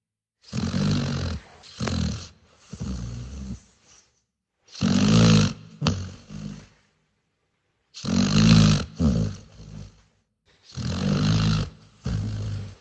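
A dog snoring: four rounds of low snores, each made of two or three snores, about every three seconds, with dead silence between them.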